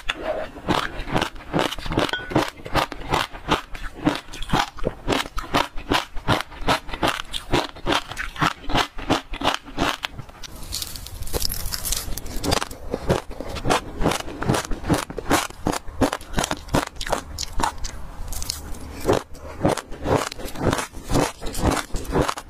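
Passion fruit seeds being chewed with the mouth close to a lapel microphone: a quick, steady run of crisp crunches and crackles, about three or four a second. The pattern shifts briefly about halfway through.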